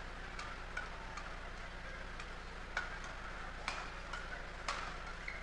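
Badminton rally: rackets striking the feathered shuttlecock back and forth, a row of faint, sharp ticks about every half second to second.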